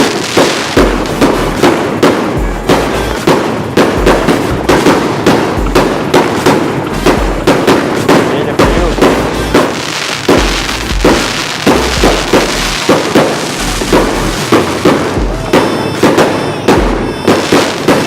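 Fireworks bursting and crackling continuously, mixed with music with a steady beat.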